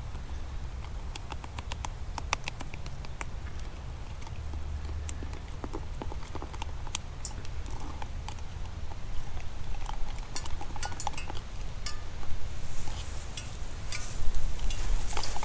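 Pancake batter being stirred by hand in a container, the utensil tapping and clicking irregularly against its sides, over a steady low rumble.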